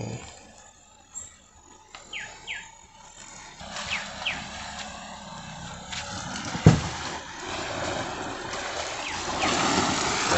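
A Fiat sedan creeping through a shallow rocky stream crossing. Its tyres splash and grind through water and over stone, the noise growing louder as it comes closer, with one loud thump about two-thirds of the way through. Birds call with short falling whistles now and then.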